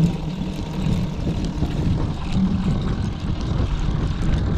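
Boat motor running steadily at trolling speed, a low even hum.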